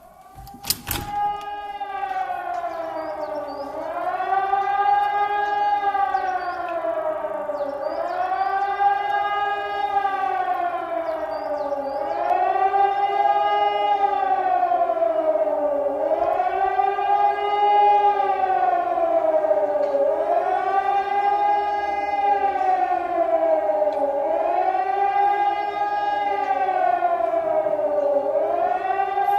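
Swiss civil-defence siren sounding the general alert: a wailing tone that rises and falls about every two seconds, building up in loudness over the first few seconds and then holding steady.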